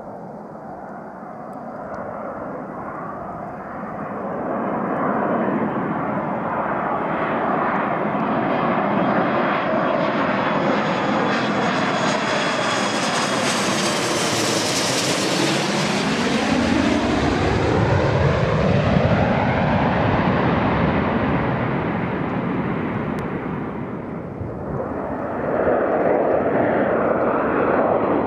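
Boeing 737-200's Pratt & Whitney JT8D turbofan engines as the jet approaches and passes low overhead on landing, the noise building and its whine sweeping down in pitch as it goes by about halfway through. Near the end the same jet's engines are heard at takeoff power as it climbs out.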